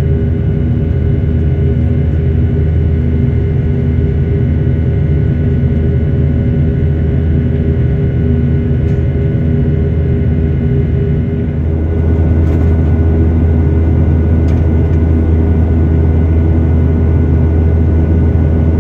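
Airliner's jet engines heard from inside the passenger cabin during the climb after takeoff: a steady deep drone with several steady humming tones, getting a little louder about twelve seconds in.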